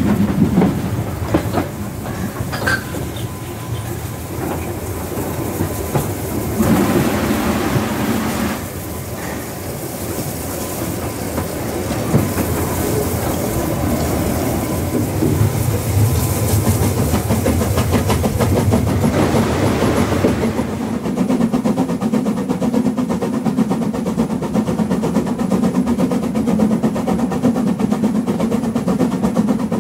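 Metre-gauge Harz steam train running, heard from the coach right behind the locomotive: a steady rumble with wheels clicking over the rail joints. About two-thirds of the way through, the hiss drops away and the rumble deepens.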